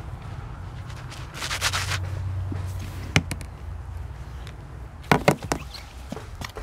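Gloved hands digging through and spreading loose, fibrous soil mix, a rustling scrape about a second and a half in, with a few sharp crackling clicks near the middle and a quick cluster of them a little after five seconds.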